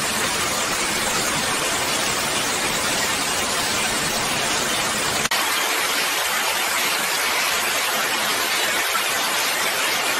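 Steady, even hiss of noise with no tone or rhythm in it, briefly dipping about five seconds in.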